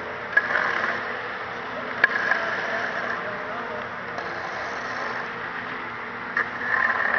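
Steady drone of the mortar pump and continuous mixer running while topping is pumped through the hose, with a low hum under it. A few sharp clicks stand out, about half a second in, about two seconds in and near the end.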